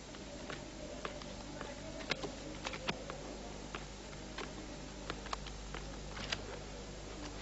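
Scattered light clicks and taps at irregular intervals, a few sharper ones about two to three seconds in and again near the end, over a steady low hum.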